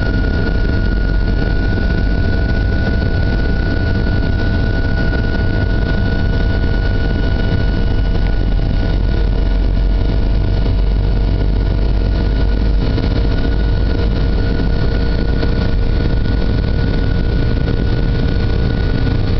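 Boeing 757-200's turbofan engines at takeoff thrust during the takeoff roll, heard from inside the passenger cabin: a loud, deep, steady rumble with a steady high whine over it.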